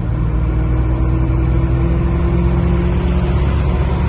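Truck's diesel engine running under way, with road rumble, heard inside the cab; the engine note rises slowly as it gains speed.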